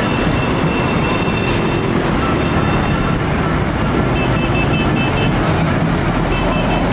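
Loud, steady rumble of vehicles on the move, with faint high tones coming and going in the middle and near the end.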